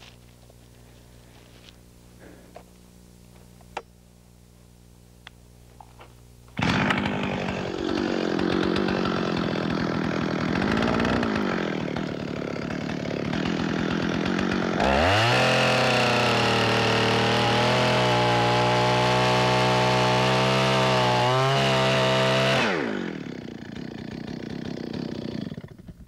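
Two-stroke chainsaw idling, then opened up to full throttle about six seconds in, sawing the sloping top cut of a tree's undercut, its pitch sagging and recovering as the chain bites. Midway it jumps to a higher, steady pitch held for several seconds, then drops back to a low idle near the end.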